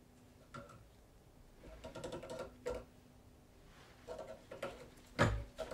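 Pliers clicking and scraping on a metal fork tine as it is bent in a vise: scattered light metal clicks and taps, with a louder knock about five seconds in.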